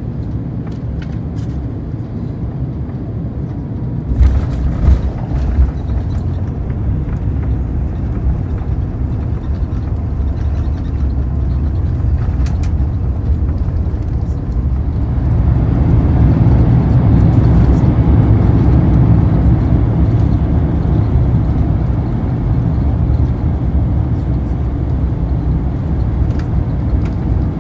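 Jet airliner's turbofan engines and runway rumble heard from inside the cabin. A few sharp thumps come about four seconds in, and the rumble grows louder from about fifteen seconds in.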